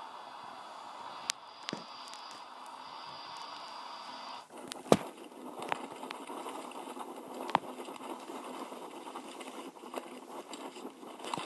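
Video soundtrack played back through laptop speakers. First a steady hiss with a few clicks, then, about four and a half seconds in, the rattling and scraping of a mountain bike riding down a rough trail, with sharp knocks, the loudest about five seconds in.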